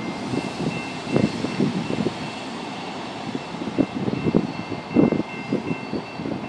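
Railroad grade-crossing bell ringing steadily as the tail of a freight train of tank and hopper cars rolls away, with irregular thumps of wind buffeting the microphone.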